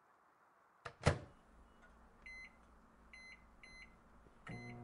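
Microwave oven being started: two sharp clicks, then a few short high keypad beeps, and about four and a half seconds in the oven's steady running hum begins.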